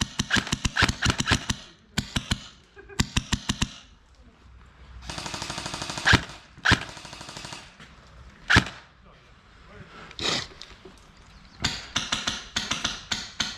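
Airsoft electric guns firing in rapid full-auto bursts, with a few single shots in the middle and more bursts near the end.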